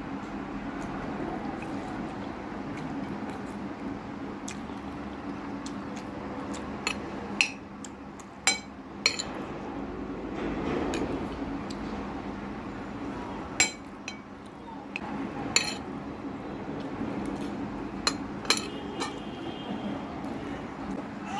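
Metal spoon clinking and scraping against a glass plate of rice, a handful of sharp separate clinks spread through, mostly in the second half, over a steady low background hum.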